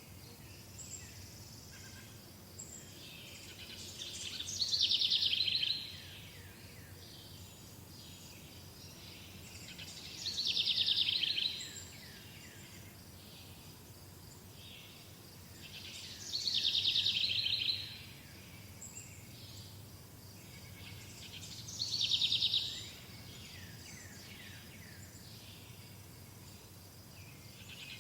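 A songbird singing the same loud, high trilled phrase about every six seconds, each phrase about a second and a half long, with fainter chirps between and a low steady outdoor hum beneath.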